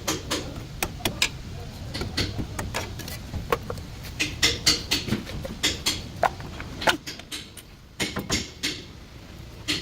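A run of irregular sharp clicks and knocks, a few each second, over a steady low rumble, with a short lull about seven seconds in.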